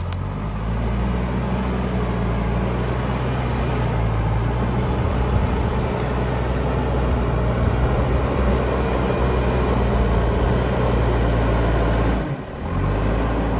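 An engine running steadily with a low, even hum. It dips briefly about twelve seconds in, then picks up again.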